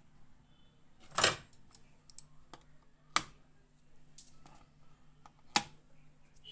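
Sharp clicks and taps of small hand tools on a TV circuit board while a resistor is being replaced: three loud clicks about two seconds apart with lighter ticks between, over a faint steady hum.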